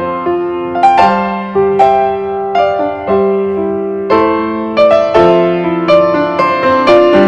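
Background piano music: a slow melody of struck notes that ring and fade over held chords.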